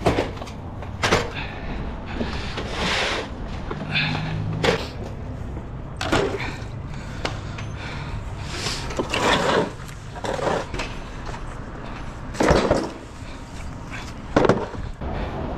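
Wheels of a loaded delivery cart rolling and rattling over a floor, with irregular knocks and clatters of product cases being handled.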